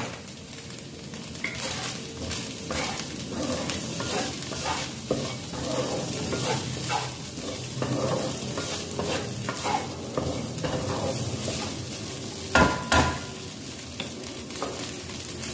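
Diced carrot and minced pork sizzling in oil in a stainless honeycomb frying pan while a wooden spatula stirs and scrapes them around in short strokes. Late on come two sharp knocks, close together.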